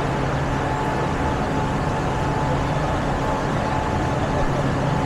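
Steady vehicle noise with a constant low hum and a faint high tone running through it, without distinct events.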